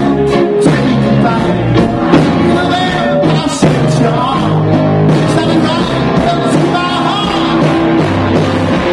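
Live rock band playing: electric guitars and drums, with a singer.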